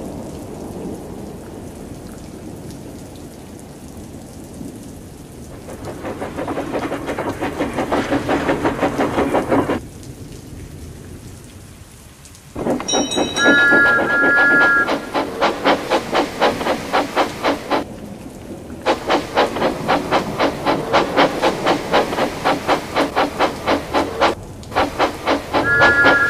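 Heavy rain falling, swelling a few seconds in and then easing. About halfway through, a steam locomotive whistle gives a two-note blast and the engine starts a rapid rhythmic puffing clatter at about two beats a second, which pauses briefly twice. The whistle sounds again near the end.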